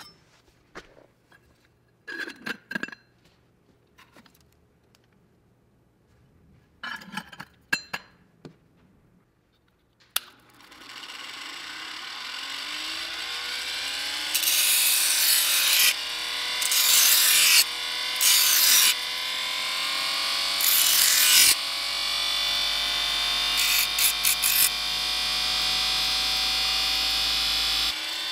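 The electric motor of a 1914 F. Bissell combination vacuum, grinder and buffer is clicked on about ten seconds in. It winds up with a rising whine to a steady high-pitched hum. Several short bursts of loud, harsh rushing noise come over the hum, and the motor is cut off near the end. A few light handling knocks come before it starts.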